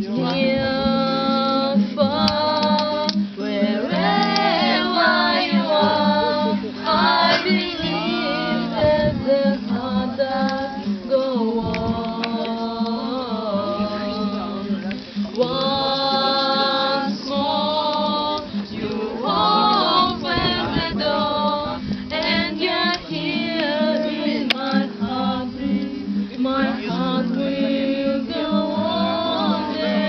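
Voices singing a song together to an acoustic guitar, with strummed chords underneath.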